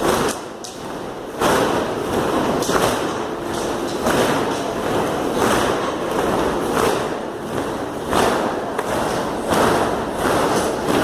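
A 'sound of war': a steady rhythm of heavy, noisy thuds about every 1.3 seconds, each fading off, like many feet stamping or marching in unison.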